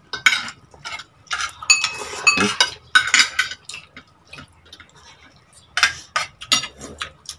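Fork and spoon clinking and scraping against a plate during a meal, in irregular clusters of short clicks with a few brief rings.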